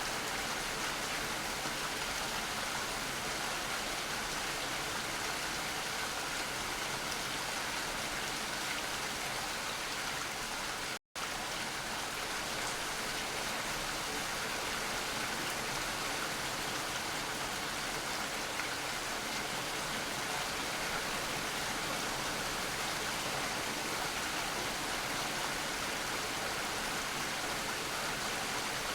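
Steady rain falling, an even hiss of many drops with no distinct single patters. About eleven seconds in, the sound cuts out to silence for a split second and then resumes.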